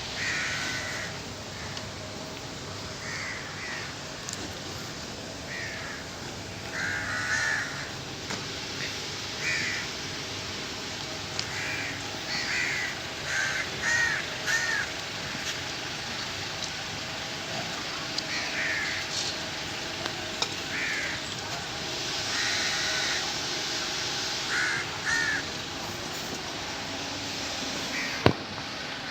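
Crows cawing: many short harsh calls, one to several at a time, every second or two over a steady background hiss, with a single sharp click near the end.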